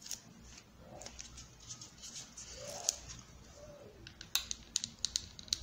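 Hot glue gun trigger clicking, sharp clicks that come in a quick run near the end, as glue is pressed out along the edge of an EVA foam piece. Under it there is light handling noise from the foam held in the hand.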